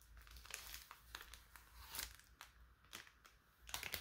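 Faint crinkling of a trading-card booster pack's foil wrapper being handled and pulled open, in scattered light crackles.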